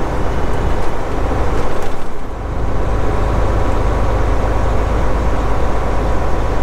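Semi truck's diesel engine running with a steady low rumble, heard from inside the cab as the truck rolls slowly across the lot. The level dips briefly about two seconds in.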